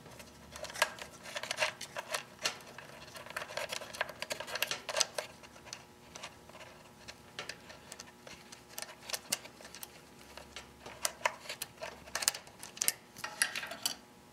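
Scattered small metallic clicks, taps and rattles as the throttle cable and its retaining nut are worked loose at the carburettor of a Honda GX31 engine. They come in two busy spells with a lull around the middle.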